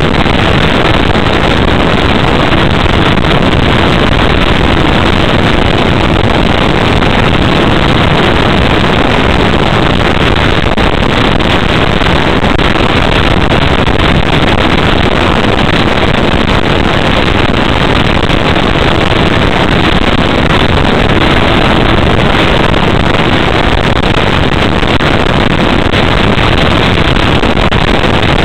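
Loud, steady rush of airflow and flight noise picked up by the onboard camera of an RC Sky Surfer motor glider in flight.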